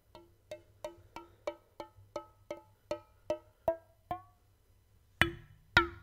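Rhythmic percussion: a steady run of short pitched tapping notes, about three a second, each with a brief ringing tone. After a short pause near the end come two louder strikes.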